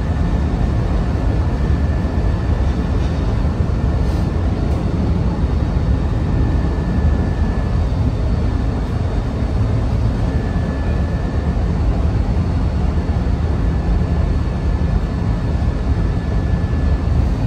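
Steady low rumble of a moving vehicle, with a faint high whine that comes and goes.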